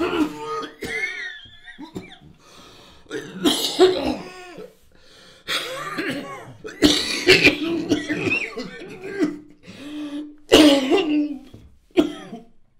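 A man coughing and gasping in repeated fits, with drawn-out moans between them, in the distress of a heart attack.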